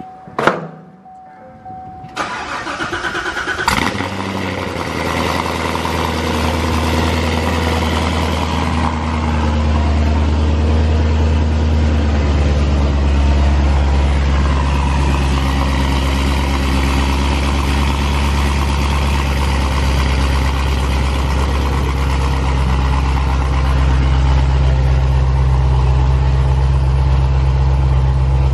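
Chevrolet Corvette C7 Z06's supercharged 6.2-litre LT4 V8 started for the first time through newly installed Kooks 2-inch headers and 3-inch X-pipe, exhaust in Tour mode. It cranks and catches about two seconds in, with a sharp crack soon after, then settles into a loud, steady idle that grows fuller about ten seconds in.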